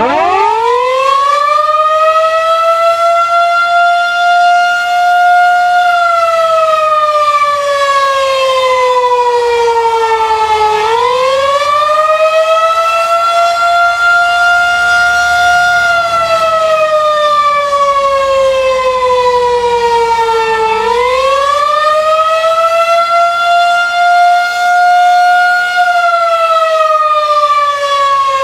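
Federal Signal 2001-130 electromechanical outdoor warning siren starting up and sounding the wavering attack signal. It spins up at the start to a loud, high tone, holds it, then sinks in pitch for several seconds before winding sharply back up, about every 10 seconds.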